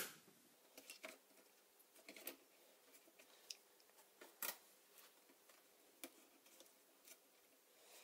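Near silence with a few faint, scattered clicks and taps from hands handling small laptop parts; the loudest tap comes about four and a half seconds in.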